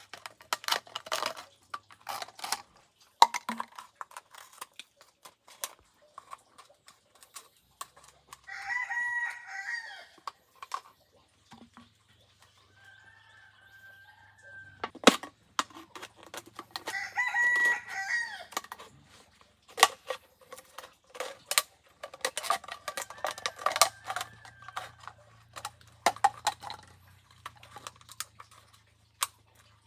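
A rooster crowing twice, each crow about two seconds long, once about a third of the way in and again a little past halfway, among frequent sharp knocks and taps.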